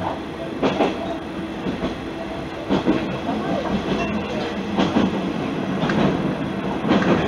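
Isumi Railway diesel railcar running along single track, heard from inside the car: a steady engine drone with the wheels clacking over rail joints every second or two.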